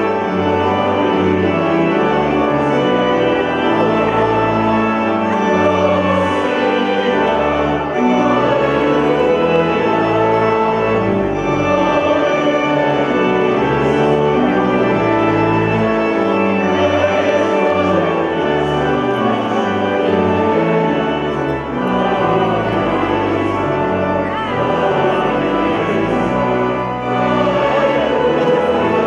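Choir singing with organ accompaniment: sustained chords that shift every second or so.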